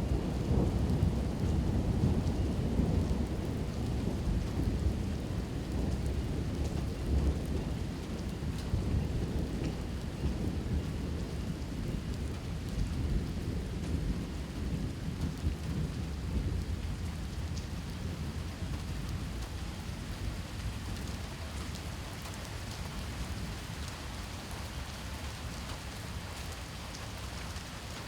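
Steady rain with a long roll of thunder, loudest at the start and slowly rumbling away over about twenty seconds.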